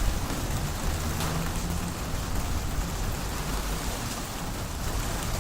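Steady rain pouring down in a thunderstorm, with a low rumble underneath.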